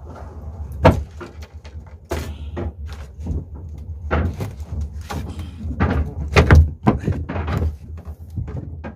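Knocks and thumps on a wooden boat deck: bare footsteps and gear being moved about, several sharp knocks scattered through, over a steady low hum.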